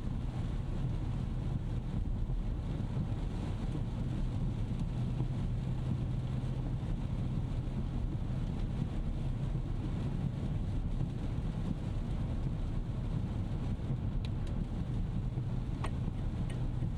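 Cabin noise of a 2025 Rolls-Royce Ghost Series II on the move: a steady low hum of road and engine. Near the end an indicator starts ticking about twice a second.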